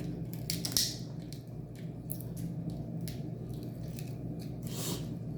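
Close-up mukbang eating sounds from a seafood boil: shellfish being cracked and chewed, a run of short, irregular crunches, louder about a second in and again near the end.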